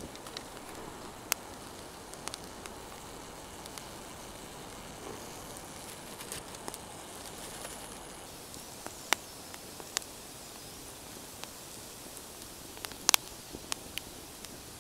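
Small campfire of dry twigs and split sticks burning as it catches, a soft steady hiss with scattered sharp crackles and pops, the loudest a double crack near the end.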